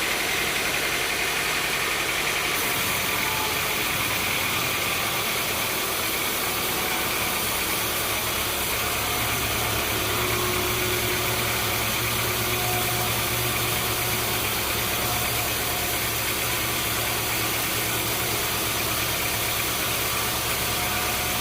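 Sawmill machinery running steadily: a continuous mechanical hum under a wash of noise, which shifts abruptly about two and a half seconds in and then holds steady.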